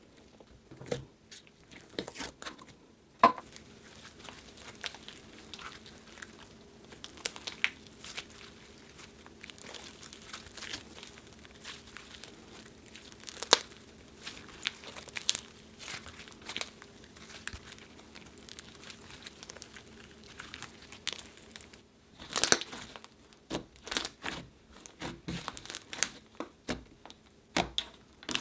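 Hands squishing, stretching and kneading thick slime with clay worked into it: a continuous run of sticky crackles, pops and crinkly tearing sounds. The crackles bunch into a dense flurry about 22 seconds in.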